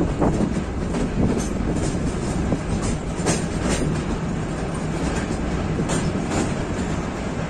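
Metre-gauge passenger train running with a steady rumble of wheels on rail, broken by pairs of sharp clacks over the rail joints about every three seconds.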